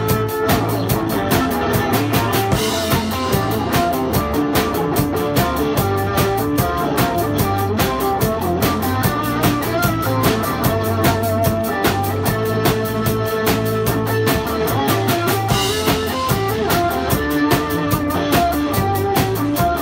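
Rock instrumental: a clear acrylic Pearl drum kit played live over backing music with electric guitar, a fast even hi-hat or ride beat driving it, with cymbal crashes about three seconds in and again about three-quarters of the way through.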